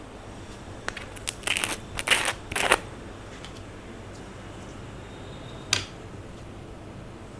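A quick cluster of short crackles and clicks from slime being worked with makeup, followed by one more click a few seconds later.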